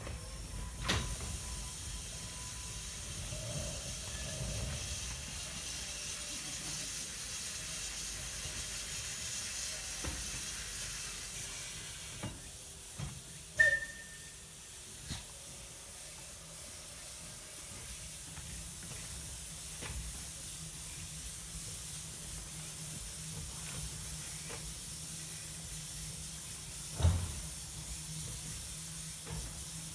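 Steam hissing steadily from a 1912 Baldwin steam locomotive, with a few sharp knocks: one with a brief squeal about halfway through and a louder one near the end.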